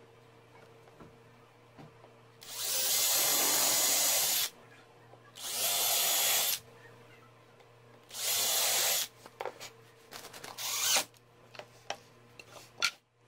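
Cordless drill running in three bursts of one to two seconds each, driving screws through small wooden blocks into wooden rails, with a steady high motor whine. After the bursts come several short clicks and knocks of wood pieces being handled.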